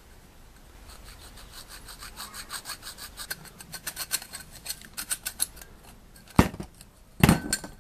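Thin aluminium tubing being cut with a hand saw blade, in quick even back-and-forth strokes of about five a second. Two loud knocks follow near the end.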